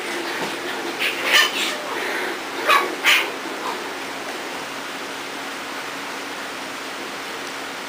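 Pembroke Welsh Corgi puppies yipping and barking in rough play, about five short, sharp yips in the first three seconds, then quiet apart from a steady low hum.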